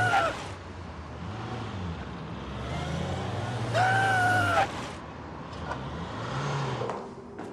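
A motor vehicle engine running steadily, with a voice calling out two long drawn-out words, right at the start and again about four seconds in. The calls are the loudest sounds.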